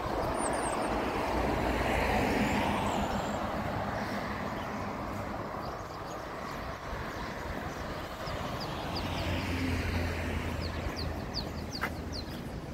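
Street traffic: vehicles passing, their engine and tyre noise swelling and fading, once about two seconds in and again near ten seconds with a low engine hum. Small birds chirp over it in the second half.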